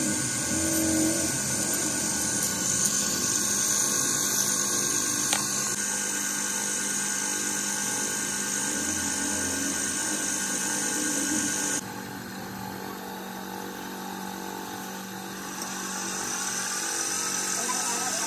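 Belt-driven wood lathe running steadily, its spinning spindle and belt giving a high whine over a low hum. The sound drops abruptly about two-thirds of the way through, then swells again near the end.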